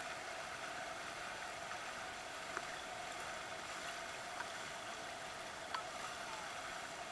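Soft, steady wash of water against a small boat's hull, with a couple of faint light ticks.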